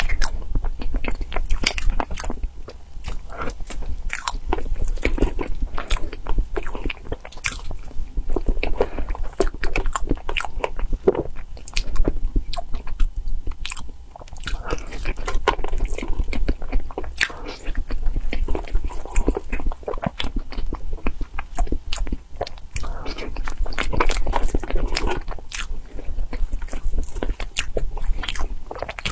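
Chewing and wet mouth sounds of someone eating soft layered cream cake: a steady run of sharp smacks and clicks.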